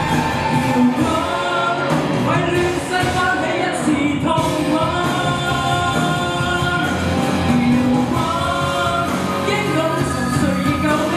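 A male singer singing into a handheld microphone over backing music, amplified through a PA.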